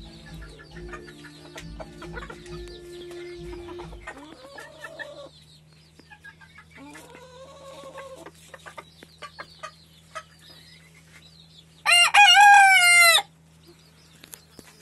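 Ko Shamo bantam chickens calling: two short, moderate calls, then about twelve seconds in a loud rooster crow lasting just over a second. A steady low hum runs under the first four seconds and stops.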